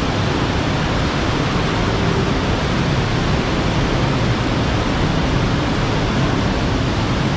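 Steady rushing noise of cascading water, even and unbroken.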